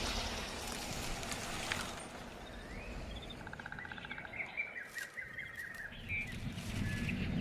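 Small birds chirping, with a quick trill and several short calls in the middle, over a steady background noise.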